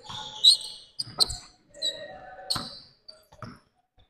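A basketball being dribbled on a hardwood gym floor: a handful of sharp bounces at uneven spacing, along with short high squeaks from sneakers on the court.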